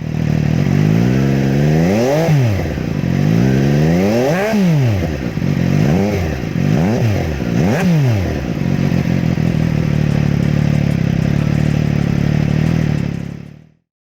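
MV Agusta Brutale 675's three-cylinder engine idling and being blipped five times, the last three revs in quicker succession, then settling back to a steady idle before it cuts off near the end.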